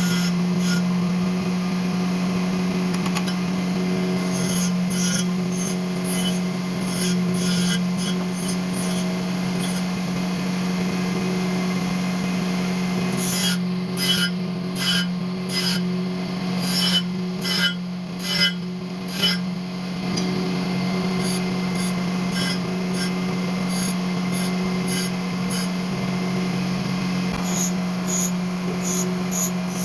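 Steady motor hum with repeated short rasping strokes of metal being filed or ground. Midway the strokes come about two a second and are loudest.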